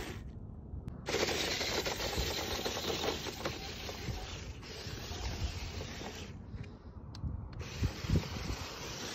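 Remote-control model Toyota Land Cruiser truck driving over loose sand: a gritty, crackling noise full of small clicks, with wind on the microphone and a few low thumps about eight seconds in.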